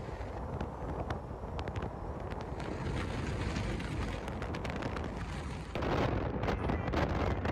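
Wind rushing over the microphone with the rumble of a Polaris side-by-side UTV driving on a dirt track, plus scattered ticks and rattles. The wind gets louder and gustier about six seconds in.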